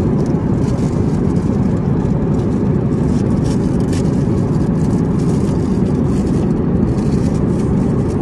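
Steady low rumble of jet airliner cabin noise in flight, with a few faint clicks as plastic food tubs are moved about on the seat-back tray.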